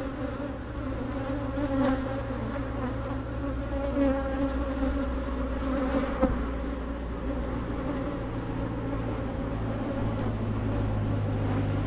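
Many honey bees from an open hive buzzing in a dense, steady hum, with single bees swelling louder as they fly close past the microphone. The colony is agitated.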